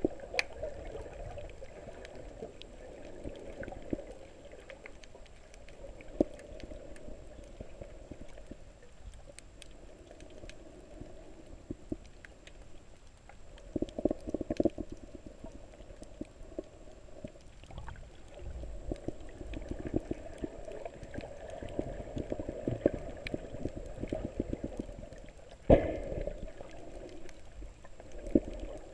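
Muffled underwater water noise picked up by a camera held below the surface while snorkeling: a steady dull rushing and sloshing, with scattered small clicks and a sharp knock near the end.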